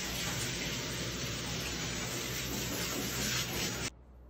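Steady hiss of water spraying from a handheld hose onto a dog in a grooming tub, cutting off suddenly near the end.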